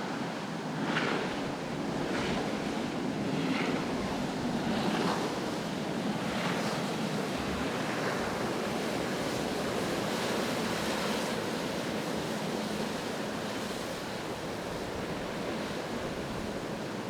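Surf and rough water washing in the inlet, with wind gusting across the microphone.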